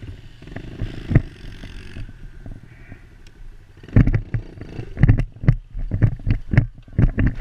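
Dirt bike engine running at low speed, heard from the rider's helmet, with a run of loud irregular thumps and knocks from about four seconds in.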